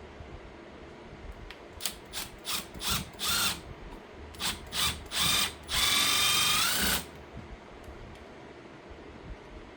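Handheld power drill run in a series of short trigger bursts, then one longer run of about a second with its motor whine rising slightly in pitch.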